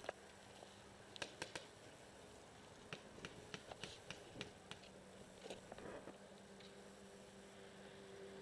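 Scattered sharp pops of paintball markers firing at a distance: three in quick succession about a second in, then a quicker run of about a dozen between three and five seconds in, and a few more just after, over a faint steady hum.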